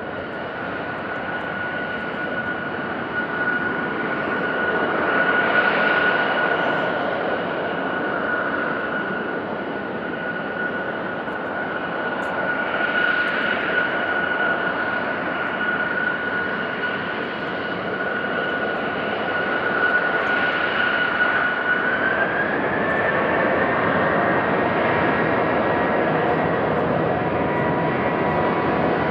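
Boeing 737-800's CFM56-7B turbofan engines running with a steady whine over a broad roar. About three-quarters of the way through they spool up for take-off: the whine rises in pitch, more tones join it, and the sound grows a little louder.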